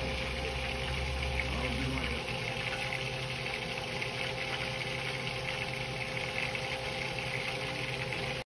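Steady background hiss with a faint voice in it, cutting off suddenly near the end.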